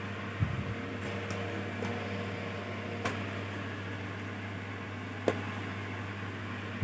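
A few sharp clicks and a soft knock from small hard parts being handled during laptop disassembly, over a steady low electrical hum.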